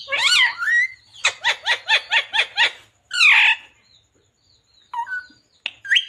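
Male rose-ringed parakeet (Indian ringneck) calling: a high wavering call, then a quick run of about eight short chattering notes, then one more wavering call about three seconds in, followed by a few faint short sounds.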